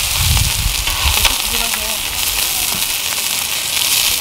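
Battered stone minari (water dropwort) sizzling steadily in oil on a hot flat griddle as it is spread out with tongs and a spatula to fry into a pancake, with a low rumble in the first second.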